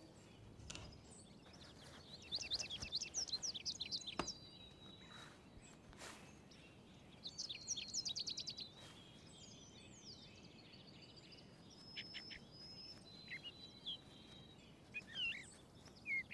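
Small birds singing faintly: two quick bursts of rapid, high chirping notes, one about two seconds in and one about seven seconds in, then scattered single chirps.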